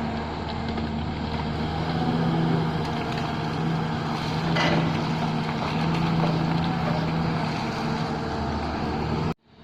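Excavator's diesel engine running steadily at a working pace, with a short clatter about halfway through. The sound cuts out abruptly near the end.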